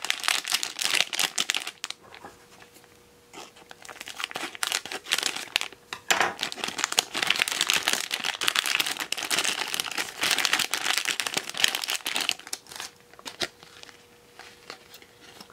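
Shiny plastic blind-bag pouch crinkling as it is handled and torn open, with a short lull about two seconds in and the crinkling dying away near the end.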